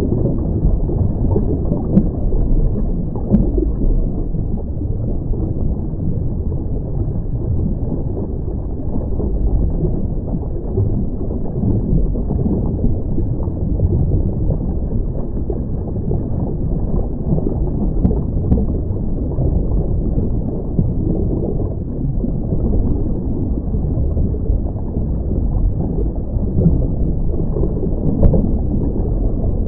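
Muffled, steady underwater rumble picked up by a camera during a scuba dive, with a few faint clicks.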